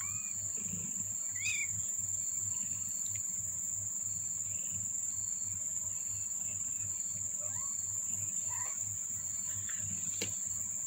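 A steady high-pitched drone, like insects chirring, with a few faint short rising chirps now and then.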